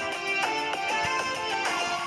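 Background music with a plucked string instrument playing a melody, fading out near the end.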